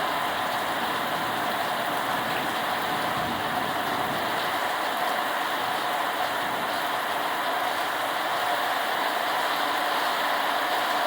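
Heavy rain falling in a steady downpour, an even rushing hiss that does not change.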